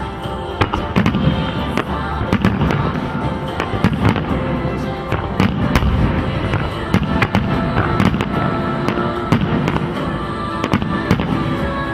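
Fireworks going off: many sharp bangs and crackles in quick, irregular succession, over music.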